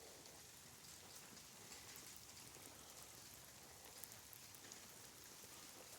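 Faint light rain falling: a soft, even hiss with scattered small drop ticks.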